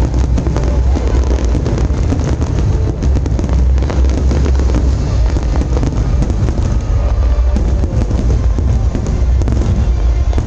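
Fireworks display: a dense, continuous barrage of deep booms and crackling pops with no break.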